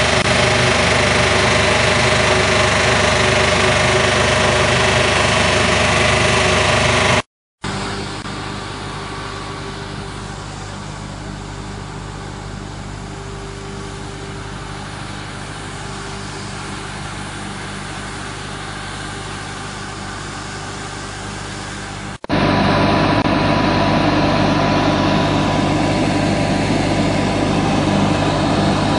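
Steady running of a Sinotruk Howo dust suppression truck's fog cannon machinery (the big fan throwing water mist, with its engine or generator), a constant mechanical hum with several steady tones. It cuts off abruptly about seven seconds in and comes back quieter, then jumps back louder a little after twenty seconds.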